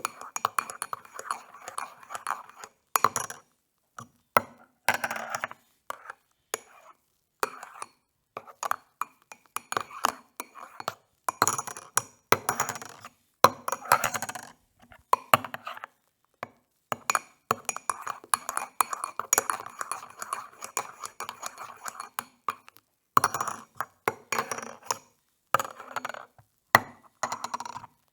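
Metal spoon stirring coffee in a cup, clinking against the sides in quick runs of strokes broken by short pauses.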